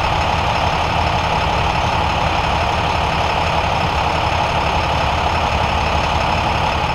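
Emergency vehicles' engines idling, a steady, unbroken sound with no breaks.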